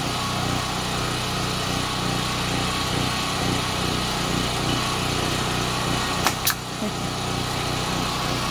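Portable generator engine running steadily. About six seconds in, an air-powered staple gun fires twice in quick succession with two sharp cracks.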